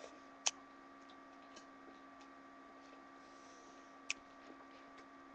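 Near silence: quiet room tone with a faint steady hum, broken by two brief clicks, one about half a second in and one about four seconds in.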